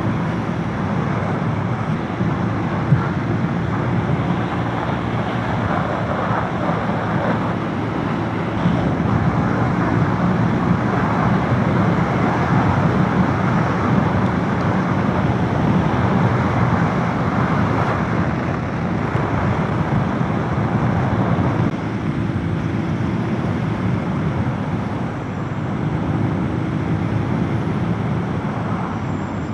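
Motorcycle riding at a steady road speed: the engine's hum under a dense rush of wind and road noise.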